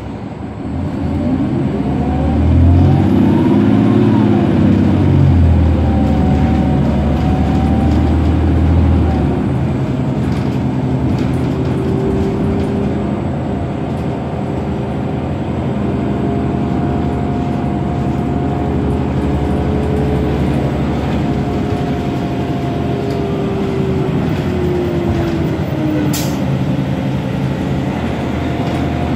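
Cabin sound of a 2007 New Flyer D60LFR articulated bus's Cummins ISM diesel and Allison B500R6 drivetrain pulling away from a stop: heavy engine sound for the first several seconds with a whine rising in pitch, then the bus running steadily with a level whine that falls in pitch as it slows near the end. A single sharp tick about 26 seconds in.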